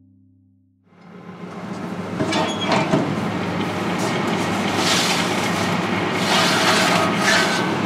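Oven running with a steady rushing hum that fades in about a second in, overlaid by metal scrapes and clatters of the oven rack and baking tray as a baked tart is drawn out with oven gloves.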